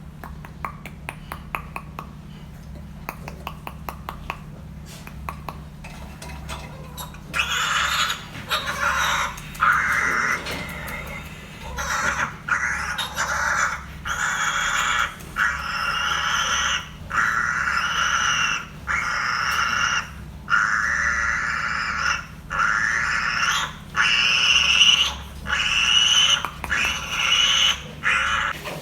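Piglets squealing in a long run of drawn-out high calls, about one a second, starting some seven seconds in. Before that, scattered sharp clicks, all over a steady low hum.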